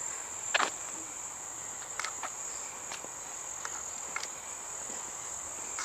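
Insects chirring in a steady, high-pitched drone, with a few light clicks and rustles scattered through it.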